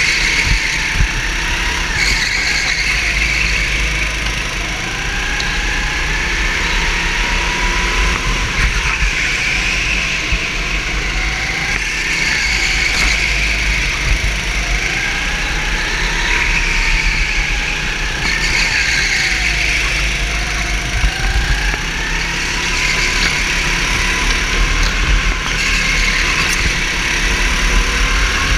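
A racing kart's motor running hard, heard from the driver's seat, its pitch rising on the straights and dropping into each corner in a repeating swell every few seconds.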